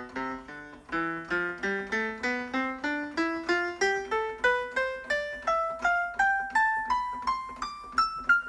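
Single synthesizer notes played from an M-Audio Keystation 61 MIDI keyboard, one key after another, about three to four a second, climbing steadily in pitch up the keyboard. It is a key-by-key test that the repaired keyboard sends every note.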